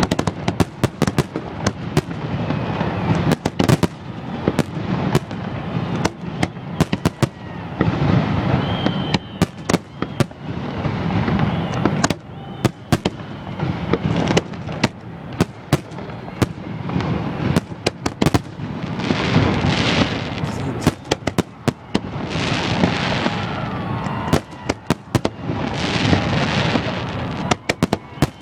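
A New Year's fireworks display going off close overhead: a dense run of sharp bangs and cracks, with longer spells of crackling shells in the last third.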